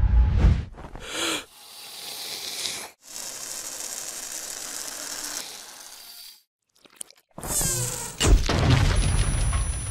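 Sound effects from an animated film's soundtrack: a hissing, crackling texture with abrupt cuts, a second of near silence about six and a half seconds in, then a loud low rumble studded with clicks.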